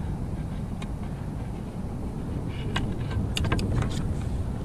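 Low, steady wind rumble on the microphone, with a quick cluster of small clicks and rattles of fishing gear being handled about three seconds in.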